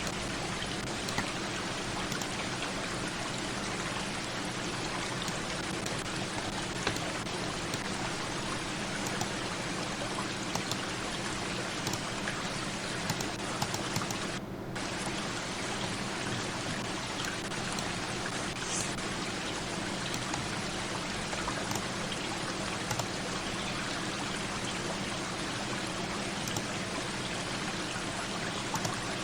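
Steady hiss like rain or running water, with faint scattered ticks and a brief drop in its higher part about halfway through.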